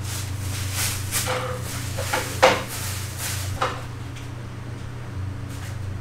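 A few knocks and clatters of things being handled, the loudest about two and a half seconds in, over a steady low hum.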